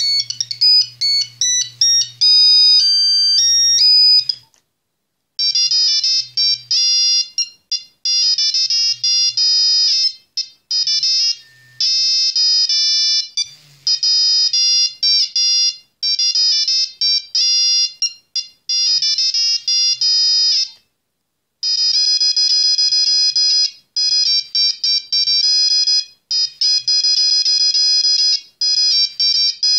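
Nokia 3410 mobile phone playing monophonic ringtone melodies from its modified software, as high-pitched beeping tunes. One tune ends about four seconds in, a second plays in short phrases with brief pauses, and a third begins about two-thirds of the way through.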